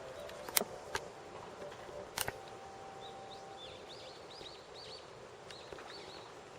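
A small bird calling a quick run of short chirps over quiet outdoor background noise, starting about halfway through. Two sharp clicks come earlier, in the first couple of seconds.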